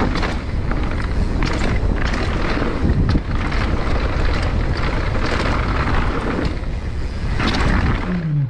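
Rushing wind on the microphone of a camera riding on a downhill mountain bike at speed, with tyres rolling on a dirt trail and short rattles and knocks as the bike goes over bumps.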